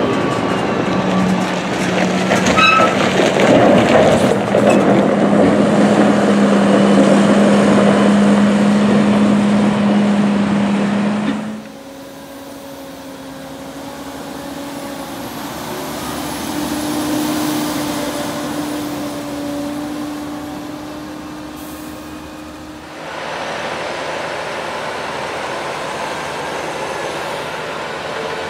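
Tractor engine running loudly and steadily as a Penta DB40 silage trailer unloads chopped corn. About twelve seconds in it gives way to the quieter, steady engine of a Deutz-Fahr 9340TTV tractor pushing corn silage up the pile with a dozer blade, its pitch rising a little partway through.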